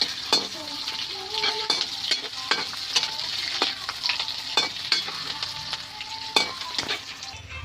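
Chicken frying and sizzling in a hot pan while it is stirred, the spoon scraping and knocking against the pan about once or twice a second.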